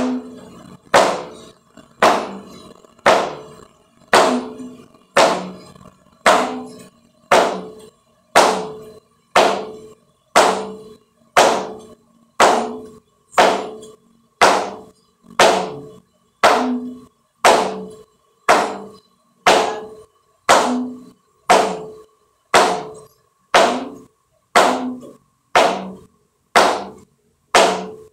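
Flamenco shoes stamping on a wooden practice board, about one sharp, even strike a second, each ringing briefly as the board resonates. Each foot is lifted and its weight dropped onto the board, a beginner's zapateado drill.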